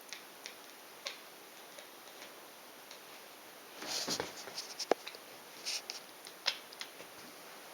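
Domestic cat making its odd hunting noise: scattered soft clicks, a short rustling burst about four seconds in, and one brief chirp just before five seconds.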